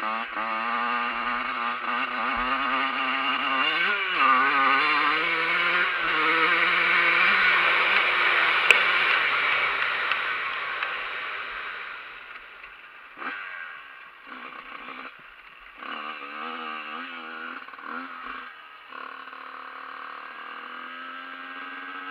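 Dirt bike engine running under throttle while being ridden. It is loud through the first ten seconds, with the pitch climbing about four seconds in, then eases off about twelve seconds in to quieter, uneven running with short bursts of throttle.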